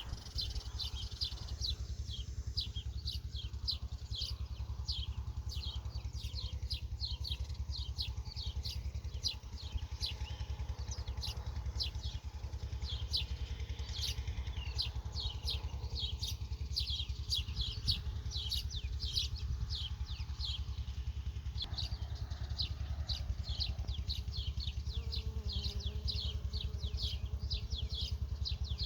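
Birds chirping over and over, short quick falling chirps about two a second, over a steady low rumble.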